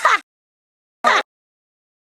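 Two short laughs in the cartoon character Peridot's voice, one at the start and one about a second in, each a fraction of a second long, with dead silence between them.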